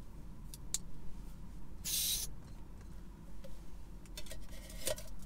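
Handling noise from setting up a JetBoil MiniMo camping stove: a few small clicks under a second in, a brief hissing rush about two seconds in, and light rustling and clicking near the end.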